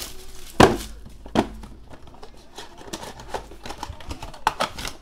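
Hands opening a cardboard trading-card box and handling its contents: rustling and crinkling of card and packaging with a run of sharp knocks and clicks, the loudest a little over half a second in and a quick pair near the end.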